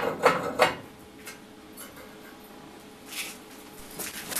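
Three quick metallic clanks as the steel plunger of a homemade texturing tool is worked by hand against its steel base, then a couple of fainter knocks near the end.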